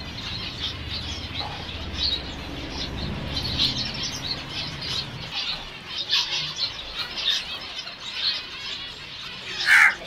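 Small caged finches chirping with many short, high twittering calls, and wings fluttering as the birds are set flying. One louder call comes just before the end.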